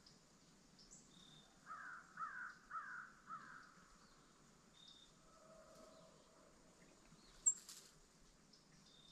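A crow cawing four times in quick succession, each caw falling in pitch. A single sharp click comes near the end.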